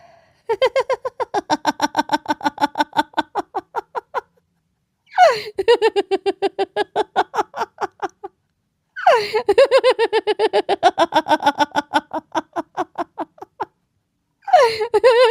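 A person laughing in long rhythmic bouts of even 'ha-ha-ha' pulses, about five a second. There are three bouts with short breaks between them, the later ones opening on a falling cry, and a fourth begins near the end.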